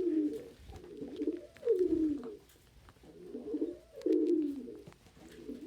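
Domestic pigeons cooing: three low coos, each falling in pitch, about two seconds apart, with faint clicks in between.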